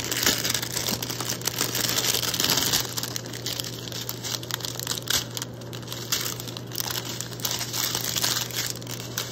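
Small clear plastic bags of diamond-painting rhinestones crinkling as they are handled, a continuous crackle of many small clicks.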